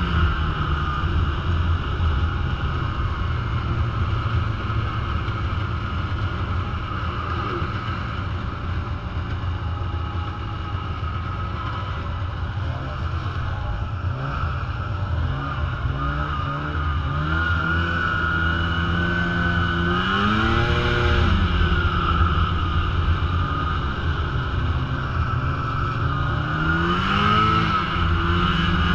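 Snowmobile engine running steadily under way, its pitch climbing as it revs up and then dropping back, twice in the second half.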